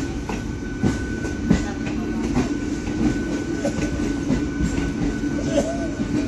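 Wheels of a suburban electric local train clicking irregularly over rail joints and points as it rolls slowly out of the station, heard from inside the coach over a steady running rumble and hum.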